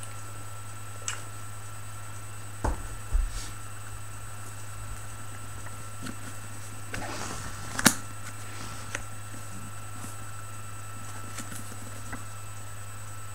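Handling noises as a paperback book is picked up and lifted close to the microphone: two dull thumps about three seconds in, a rustle from about seven seconds that ends in a sharp knock, and a few small clicks, over a steady low electrical hum with a faint high whine.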